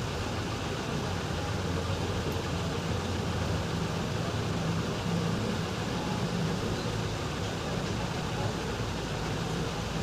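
Steady background noise with a low hum running under it, with no distinct events.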